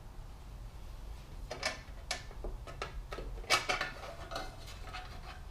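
Light clicks and clatters of hard plastic and metal being handled as the rain shield over the transmission control unit is worked loose. There is a group of clicks about a second and a half in and a denser clatter around three and a half seconds.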